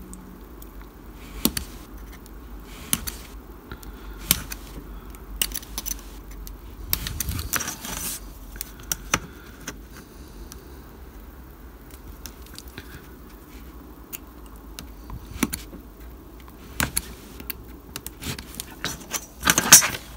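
Craft knife scoring and cutting a small door out of a thin white sheet against a steel rule on a cutting mat: scattered sharp clicks and light scrapes, with a longer scraping stretch about seven seconds in and a louder cluster of clicks near the end.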